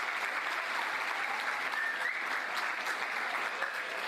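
Audience applauding, steady sustained clapping from many hands.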